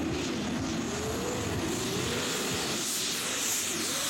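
Turbocharged mini puller tractor engine running at full throttle while pulling the weight sled. Its note swoops up and down repeatedly as the revs surge, and a hiss grows louder in the second half.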